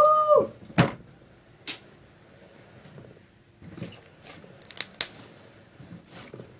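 Hands kneading and stretching a large mass of slime: scattered sticky clicks and pops. At the very start a short squeal rises, holds for about half a second and falls away.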